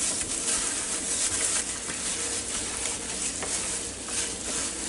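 Gloved hands tossing and squeezing oiled, seasoned raw chicken wings in a mixing bowl: a continuous rustling and squishing of plastic gloves and oily meat.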